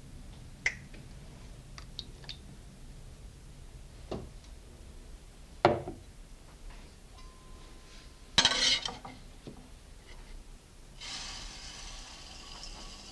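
A few light knocks and clinks on a stainless steel mixing bowl, the loudest about halfway through, with a short rattling clatter a little later. Near the end comes a steady hiss of granulated sugar pouring into the bowl.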